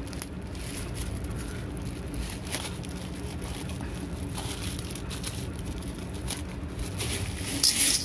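Thin plastic packet crinkling and tearing as it is worked open, then dried red kidney beans pouring out of it into an aluminium pot near the end.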